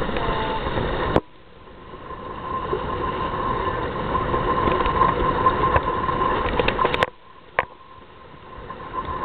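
Wind buffeting the microphone and water rushing past the hulls of a Hobie Cat catamaran under sail. The noise cuts out abruptly about a second in and again about seven seconds in, building back up each time.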